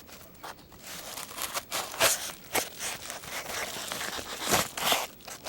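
A mail package being cut and torn open with a Benchmade Griptilian folding knife: steady scraping and ripping of the packaging, with a few sharp cracks about two seconds in and again near the end.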